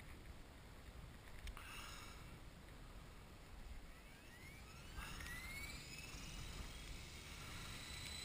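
Blade 450 electric RC helicopter's motor spooling up: a faint whine that begins rising about two seconds in and levels off into a steady high whine near the end, over low wind rumble on the microphone.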